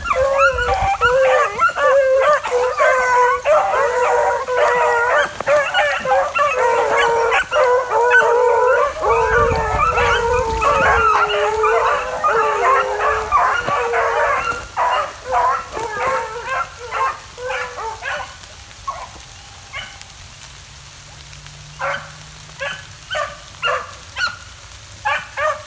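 A pack of beagles baying together, many overlapping howls at once for more than ten seconds. The cry then thins out to separate short barks and yelps, with a quieter spell before a few more barks near the end.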